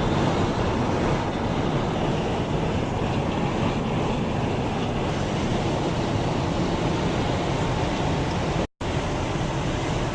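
Steady road and engine noise inside a car cruising at highway speed. It cuts out abruptly for a moment near the end, then resumes.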